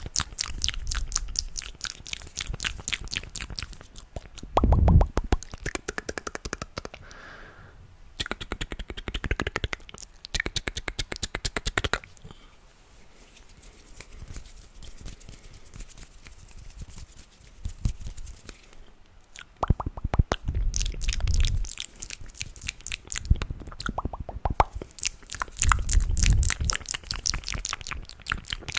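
Close-miked ASMR mouth sounds: rapid trains of wet clicks and pops in bursts, quieter for several seconds in the middle.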